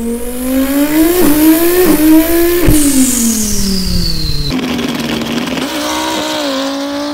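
Mouth-made imitation of a twin-turbo Audi R8 accelerating: the voice climbs in pitch in steps like gear changes, with a high falling turbo-like hiss. About four and a half seconds in it cuts abruptly to a real twin-turbo Audi R8's engine running at a steady pitch with small shifts.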